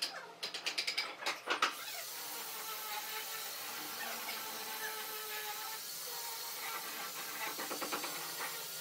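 Wooden stick scraping filler mixture out of a bowl: a fast rattling run of clicks for about the first second and a half, then a steady even hiss.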